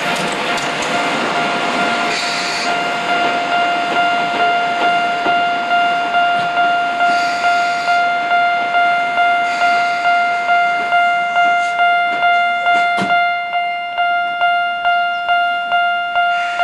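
Japanese railway level-crossing warning bell ringing in steady repeated strikes, about one and a half a second. A slow-moving steam locomotive (Chichibu Railway's C58) runs underneath, with short spells of steam hiss.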